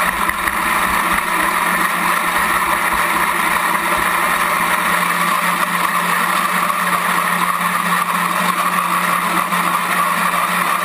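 Small boat's motor running steadily under way across open water: a constant low hum with a higher whine over it and no break.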